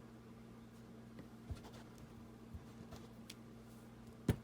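Quiet handling of paper and craft supplies on a tabletop: a few faint ticks and a light tap, then one sharp knock near the end, over a low steady hum.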